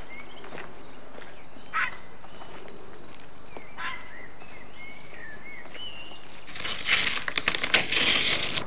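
Birds chirping in short rising and falling calls, with a few light steps on gravel. About six and a half seconds in, a louder crunching, clattering noise starts and runs for about two seconds.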